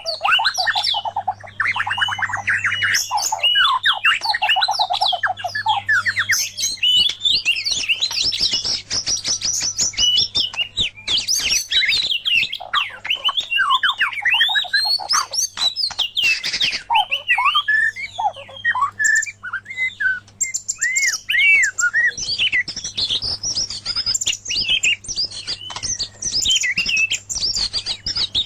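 White-rumped shama and oriental magpie-robin singing against each other: an unbroken stream of varied whistles, fast trills and chattering phrases.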